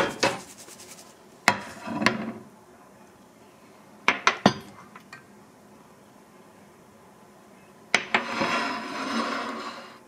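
Kitchenware being handled: sharp clinks and knocks of a pan, a ceramic plate, a metal spoon against a glass jar and a small ceramic dish, including a quick run of three clinks. Near the end a knock is followed by about two seconds of scraping.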